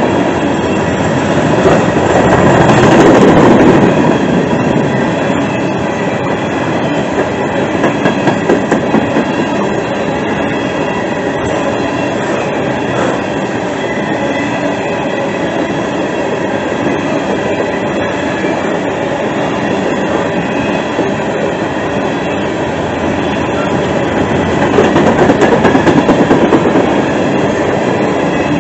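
Freight train of open-top hopper cars rolling past at trackside: a loud, steady rumble of steel wheels on the rails. It swells a little near the start and again near the end.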